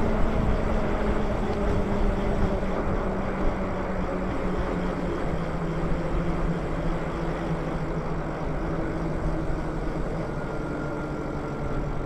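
E-bike riding noise: wind rushing over the camera microphone and tyres rolling on pavement, with a steady electric motor hum that slowly drops in pitch.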